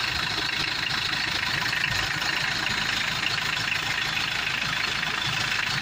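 Mitsubishi 4D56 four-cylinder diesel engine idling steadily.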